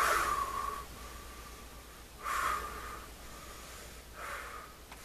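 A man's forceful breaths during a floor exercise, three of them about two seconds apart, the first loudest and the last faint.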